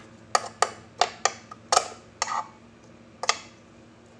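Sharp irregular clicks and taps on the nonstick plate of an electric waffle maker as stuck bits of waffle are picked off, about eight in the first three and a half seconds. The waffles are sticking because the plates were not wiped with oil. A faint steady hum runs underneath.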